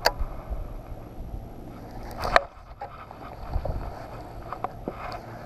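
Baitcasting rod and reel being handled while fishing from a boat. There are scattered sharp clicks and knocks, the loudest a burst about two seconds in, over a steady low rumble.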